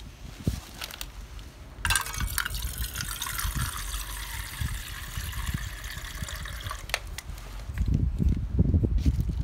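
Water pouring from a large plastic water bottle into a mini Trangia's aluminium pan, starting about two seconds in and stopping about five seconds later. Low, uneven rumbling handling noise follows near the end.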